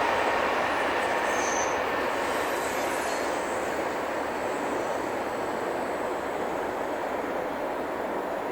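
Electric passenger train rumbling along the track at low speed, slowly fading as it draws away, with a faint high squeal from the wheels.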